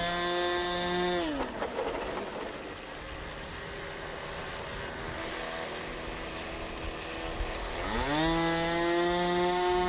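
Small engine of an RC VTOL tailsitter model airplane running on the ground: held at high throttle, throttled back to idle about a second in, idling lower and quieter, then revved back up about eight seconds in and held.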